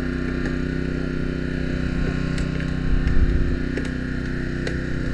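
Steady engine drone of a gas-powered hydraulic power unit running a Jaws of Life rescue tool as it works on a car's door pillar, with a few sharp clicks and a louder rough stretch about three seconds in.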